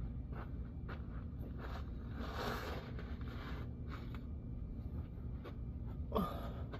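A jack being pumped to lift the fuel tank up under the truck, giving short clicks about two a second. There is a longer scrape a little past two seconds in and a brief creak near the end.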